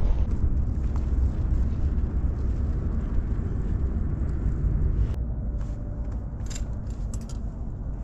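Strong wind buffeting the microphone as a low, unsteady rumble, easing slightly about halfway through, with a few short clicks near the middle.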